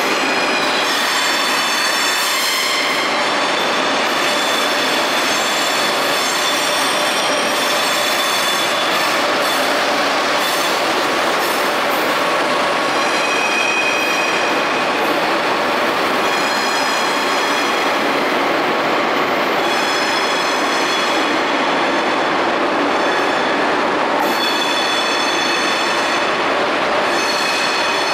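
Ouigo double-deck TGV train moving along a station track, wheels squealing in repeated high screeches over a steady rail rumble.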